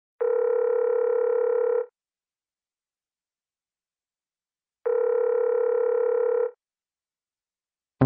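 Telephone ringback tone: two long, steady electronic beeps, each about a second and a half, about three seconds apart. Music cuts in at the very end.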